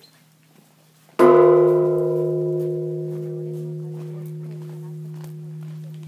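Large bronze Japanese temple bell (bonshō) struck once by its hanging wooden log striker about a second in. The strike is followed by a long, deep ringing hum that slowly fades, with the higher tones dying away first.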